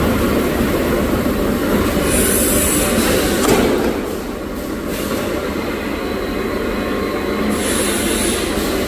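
uPVC pipe socketing machinery running with a steady loud mechanical rumble, with two short hisses, about two seconds in and again near the end.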